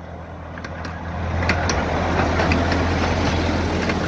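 Miniature ride-on park train passing close, its locomotive running with a low hum that grows louder over the first second, with a few light clicks as the cars roll along the track.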